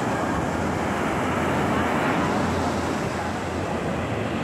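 Ocean surf breaking and washing up the beach: a steady rushing noise with a low rumble underneath.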